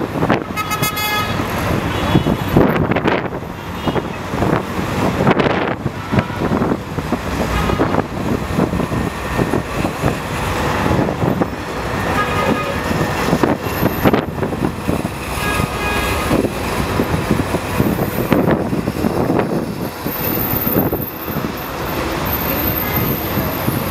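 Dense city road traffic: a steady mass of engine and tyre noise. A vehicle horn toots briefly about a second in, and another horn sounds more faintly later.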